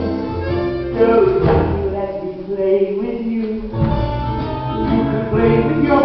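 Musical-theatre song: a man singing with instrumental accompaniment.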